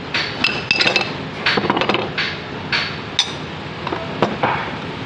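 Metal parts of an alternator clinking and knocking against each other as it is taken apart by hand, with the housing separated and the claw-pole rotor pulled out. It is an irregular run of sharp clinks, some with a brief metallic ring.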